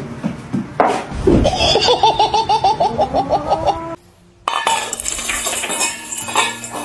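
A person laughing in a quick run of 'ha-ha-ha' pulses for about two seconds. About four seconds in, the sound cuts briefly to near quiet, then gives way to mixed household sound.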